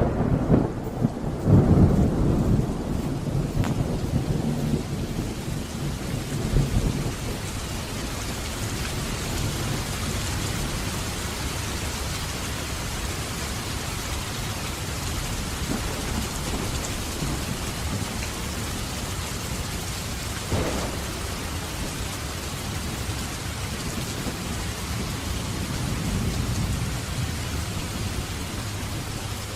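Thunder rumbling loudly over heavy rain, the rumble dying away over the first several seconds. Then steady rain, with a faint distant rumble about twenty seconds in.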